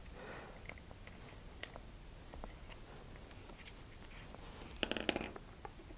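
Faint handling noise: scattered small clicks and rustles of fingers working a paper tube coupler and pressing a glued paper shock-cord tab against its inside wall, with a short cluster of sharper clicks about five seconds in.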